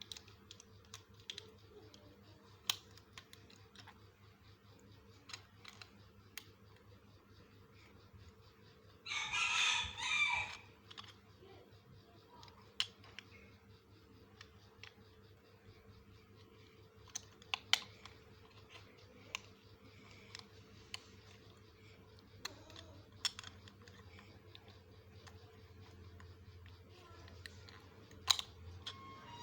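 Small plastic clicks and taps of building-block pieces being handled and pressed together. A rooster crows once, about nine seconds in, in two parts that together last about a second and a half.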